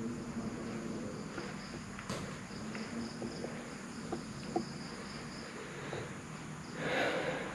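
Insects chirping: a high-pitched trill that pulses for a few seconds in the middle, over a faint steady high tone. A few small clicks come through, and there is a short burst of noise near the end.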